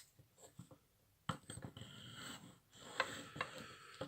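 Cardboard and plastic toy packaging being handled: a sharp click, then rustling and scraping with a few sharp clicks.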